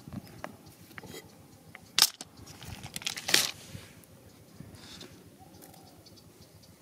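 Rocks clicking and knocking against each other while being handled over gravel, with a sharp knock about two seconds in and a short clatter about a second later, then light rustling.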